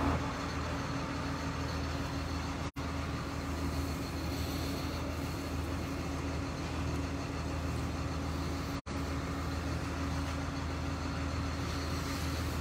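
Heavy diesel engine idling steadily with a low, even hum. The sound cuts out for an instant twice, about three and about nine seconds in.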